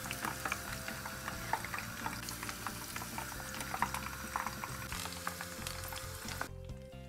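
Hot oil sizzling and crackling around chicken-and-egg koftas deep-frying in a pan, with many small sharp pops; the sizzle cuts off suddenly about six and a half seconds in.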